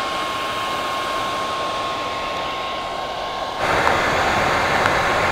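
Handheld Revlon hair dryer blowing steadily onto old paint protection film to soften its adhesive for peeling. A thin steady whine runs through the rush of air, and it gets louder about three and a half seconds in.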